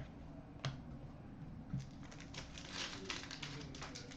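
Hockey trading cards being handled: a couple of faint ticks, then a run of small, irregular clicks and light rustling as cards slide against each other and their packaging.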